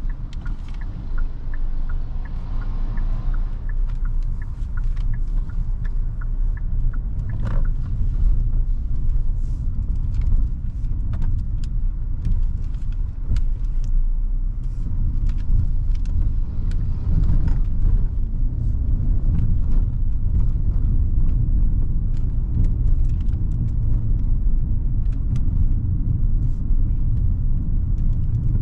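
Hyundai Creta's 1.5-litre four-cylinder petrol engine and road noise making a steady low rumble while driving, with frequent small clicks and knocks from the road surface.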